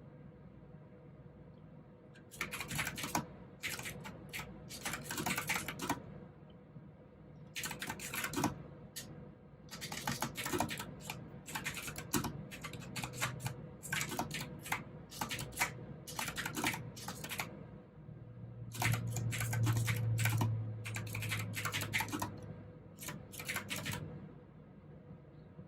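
Mechanical keyboard with clicky blue switches typing in bursts of a few seconds, broken by short pauses. A low hum swells briefly about two-thirds of the way in.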